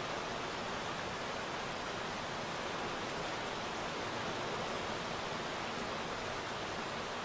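Steady rain falling, an even hiss that keeps on without change.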